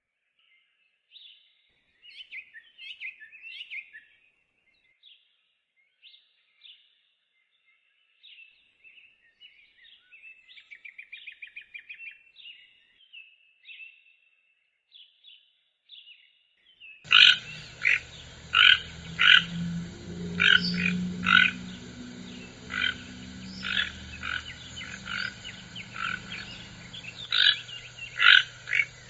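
Faint, high bird chirps, some in quick trills. About two-thirds in, a louder, noisier recording begins: toucan calls, short croaks repeated in an uneven series.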